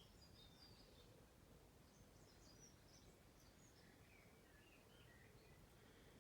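Near silence: faint room tone with faint bird chirps from time to time.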